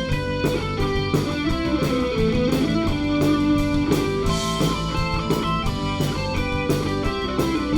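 Live rock band playing an instrumental passage: electric guitar chords over bass and steady drum hits.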